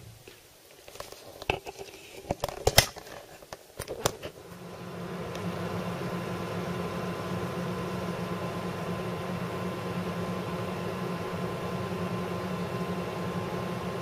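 A few clicks and knocks, then about four seconds in a desktop PC powers up: its fans, including the Corsair H100i liquid cooler's pump and SP120L radiator fans, spin up to a steady whirring hum with a faint whine over it.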